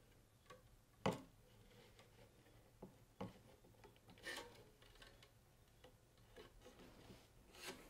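Faint rubbing and a few scattered soft clicks as a cross string is woven over and under the main strings of a tennis racquet.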